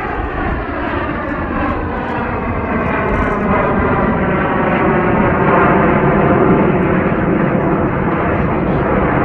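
Canadair CT-114 Tutor jets of the Snowbirds flying past, a continuous jet-engine rush with a sweeping, phasing hiss that grows louder to a peak about six seconds in.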